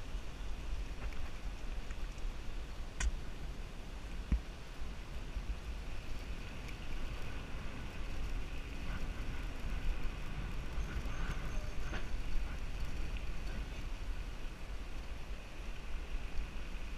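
Ride noise from a bicycle-mounted GoPro rolling along a paved lane: a steady low rumble of wind and road vibration on the camera's microphone, with a few sharp clicks.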